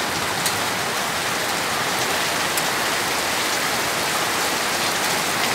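Steady rain falling during a thunderstorm, an even hiss, with a few sharp close ticks of single drops.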